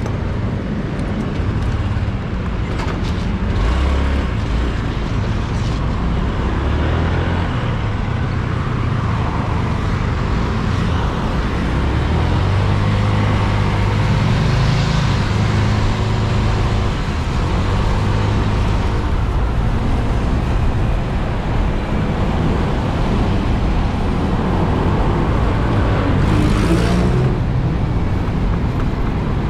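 Motorcycle engine running on the move, its note stepping up and down with throttle and gears, mixed with wind and road noise on the GoPro's built-in microphone. Near the end there is a short, louder whoosh.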